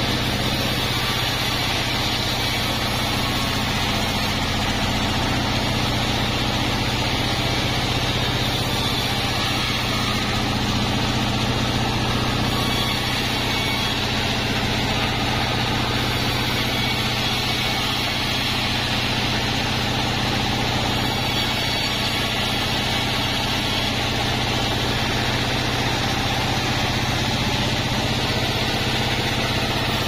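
Large band sawmill running steadily, its blade ripping wadang timber into planks, over the constant low hum of the saw's drive.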